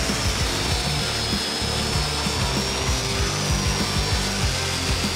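Angle grinder fitted with a soft wire wheel, running steadily against a steel door pillar and scrubbing off paint: a steady high whine over the scrubbing. Background music with a beat plays underneath.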